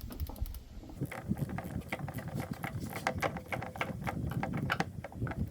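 Socket ratchet clicking in quick uneven runs as it tightens a battery terminal nut on the cable clamp.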